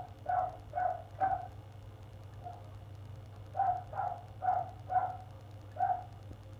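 A dog barking in two bouts: three barks, a pause of about two seconds, then five more, over a steady low hum.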